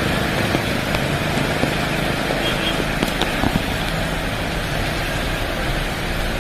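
Heavy rain and strong wind: a steady rushing noise with a low rumble and a few faint ticks.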